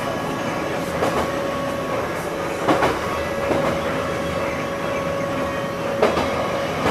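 Moscow Metro Ezh-series electric train running at speed, heard from inside the car: a steady running noise with a held whine, and the wheels clicking over rail joints about one, three and six seconds in.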